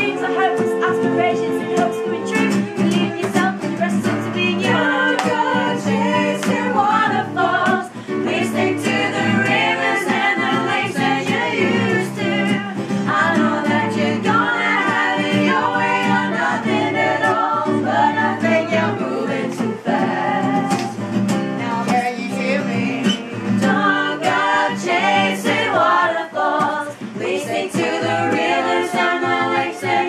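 A small group of women and men singing together along to a strummed acoustic guitar.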